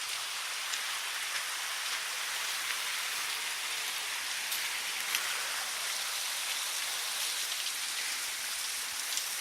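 Steady hiss of a river's running water, with a few faint scattered ticks.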